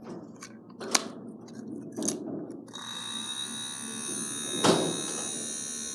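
Mini battery-powered hairdryer's small fan motor switching on about three seconds in and running with a steady high buzzing whine; after being smashed it still works but sounds different. Handling clicks come before it starts, and there is one sharp click while it runs.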